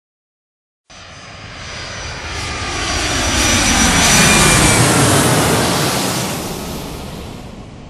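Jet airplane fly-by sound effect: engine noise that starts about a second in, swells to its loudest around the middle and fades away toward the end, with faint tones gliding down through it.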